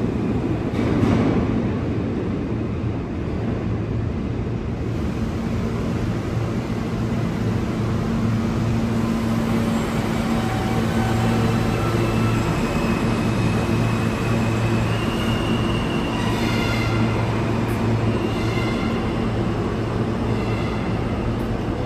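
New York City subway train running at the station platform: a steady low rumble and hum, with faint high whining tones in the second half.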